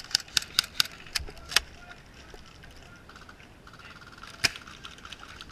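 Airsoft gun fire: a quick string of sharp shots, about four a second, stopping about a second and a half in, then a single shot near the end.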